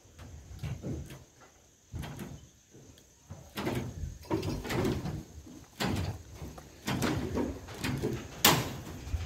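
Hand tin snips cutting and working the edge of a metal roofing sheet: irregular crunching clicks and metal scrapes, getting louder about three and a half seconds in, with a sharp loud one near the end.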